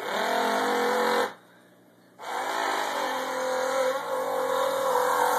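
A young child's voice imitating a motor, a buzzing engine noise made with the mouth: a short burst of about a second, a pause, then a longer one of about three seconds.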